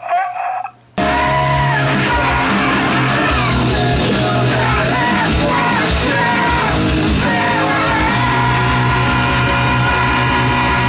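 Rock song: after a brief sung line and a short break, the full band with bass and drums comes in about a second in, under a sung lead vocal.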